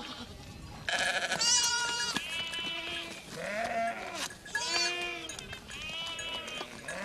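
A mixed flock of sheep and goats bleating, several calls one after another from about a second in, some of them high-pitched.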